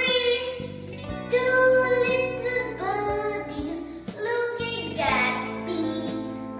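A young girl singing a children's nursery rhyme, phrase by phrase, over steady musical accompaniment.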